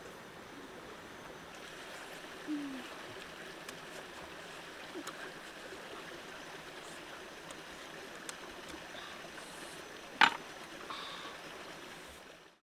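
Stream water running steadily over rocks. There are a few small clicks and one sharp, loud click about ten seconds in, and the sound fades out near the end.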